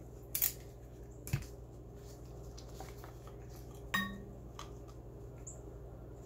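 A screwdriver clicks a couple of times near the start as the last screw comes out of a shotgun's buttplate. Then comes a light knock, and about four seconds in a single sharp metal clink with a brief ring as the loose steel buttplate is laid down on the bench.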